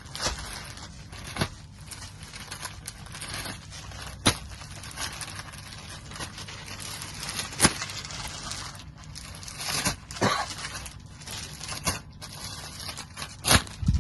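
Sarees and their plastic wrapping being handled: rustling with a sharp crinkle every few seconds.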